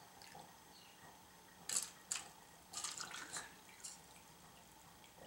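Distilled white vinegar poured from a plastic gallon jug into small plastic cups: faint trickling, with a few short splashes and drips around the middle.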